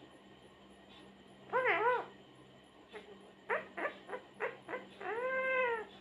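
Indian ringneck parrot calling: a short wavering call, then a quick run of about six sharp chirps, then one long note that rises and falls.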